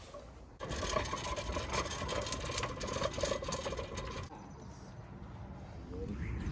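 Earthwise 18-inch push reel mower rolling for about three and a half seconds, its spinning reel blades giving a fast, even whirring clatter that starts about half a second in and stops abruptly.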